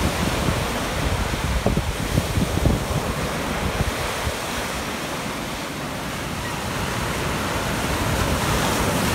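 Small waves breaking and washing up over the sand in a steady rush of surf, with wind buffeting the microphone in gusts during the first few seconds.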